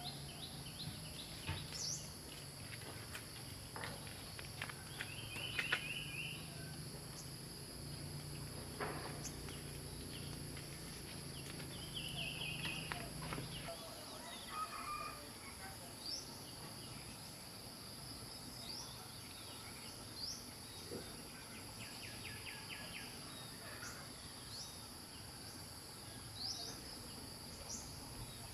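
Steady high-pitched insect chorus, with scattered light clicks and taps and short high chirps. A low hum underneath stops about halfway through.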